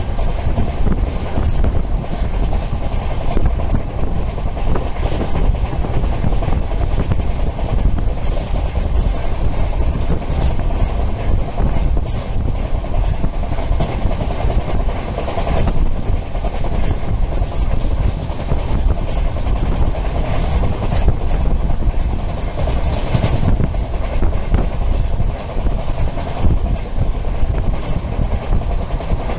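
Sleeper coach of an Indian Railways express train running along the track: a steady, loud rumble with the clack of the wheels over rail joints.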